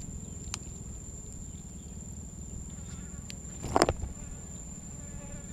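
A steady high-pitched insect drone with a low hum underneath, a few faint ticks, and one short, louder crunch or clatter of eating almost four seconds in.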